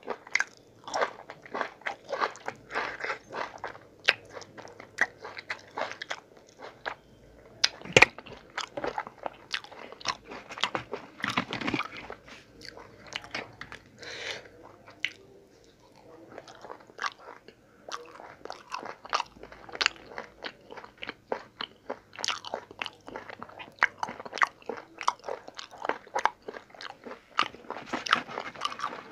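Close-miked eating sounds: a person biting and chewing, starting on a fibrous moringa drumstick pod and then mouthfuls of paratha with vegetables, with many wet mouth clicks and smacks and crunchy bites. A sharp crack about eight seconds in is the loudest sound.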